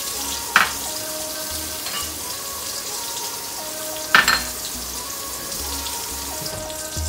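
Egg-and-flour-coated chicken breasts sizzling steadily as they fry in oil in a stainless steel skillet. Two sharp clinks, about half a second in and again about four seconds in, as small glass bowls are set down on the countertop.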